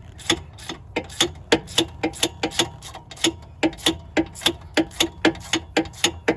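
Socket ratchet clicking in a steady run of sharp clicks, about three a second, as hub bolts are run in.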